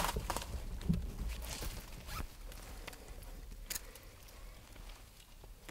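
Faint rustling in dry leaf litter with a few light clicks and taps as a trail camera on a tree trunk is handled and set running.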